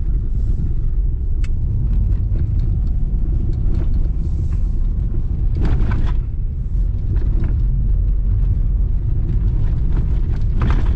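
Inside a Lada Vesta's cabin on a rough dirt washboard road at speed: steady low rumble from the winter tyres and suspension, with many small knocks and rattles through it. This is a test of the car's newly fitted ASOMI struts for knocking and rattling panels.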